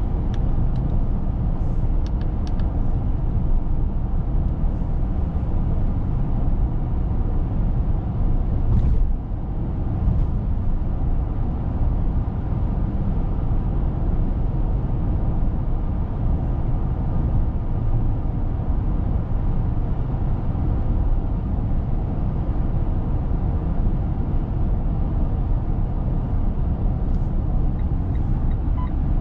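Steady low rumble of road noise heard from inside the cabin of a Mitsubishi Eclipse Cross PHEV cruising at expressway speed, briefly louder about nine seconds in.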